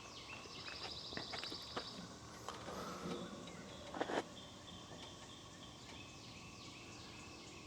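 Outdoor ambience of several birds chirping and trilling. A few faint knocks, one somewhat louder about four seconds in.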